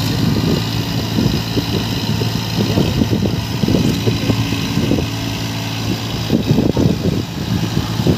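Eicher 557 4WD tractor's diesel engine running steadily under load while its rear rotavator churns through deep, waterlogged mud. Irregular splashing and churning sounds ride over the engine hum.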